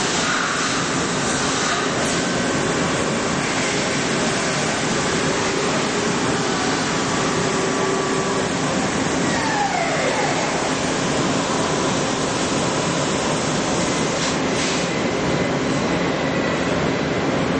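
Multi-tasking CNC lathe running: a steady, loud wash of machine noise with faint steady tones, and a tone that falls in pitch about ten seconds in.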